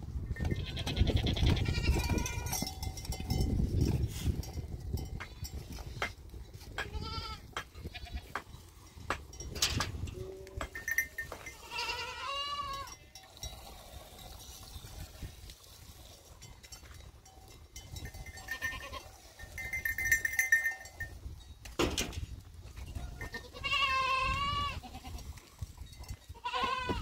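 Goats bleating on and off: several wavering calls, the loudest about halfway through and near the end, among short clicks and shuffling from the herd.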